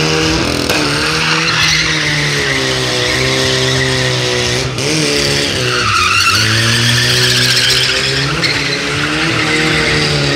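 Chevrolet Chevette hatchback drifting in circles: its engine revs hard, its pitch dipping and climbing again twice near the middle, while the tyres squeal and skid on the concrete.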